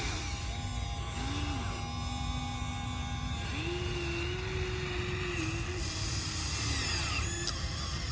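Small electric motors of a Huina radio-controlled toy excavator whining as it works. The tones start, stop and shift in pitch as different motors run.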